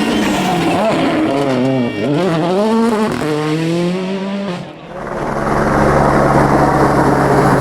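Rally car engine revving hard and dropping repeatedly as it is driven through gear changes. About five seconds in it cuts abruptly to a steady, unchanging engine drone with heavy noise.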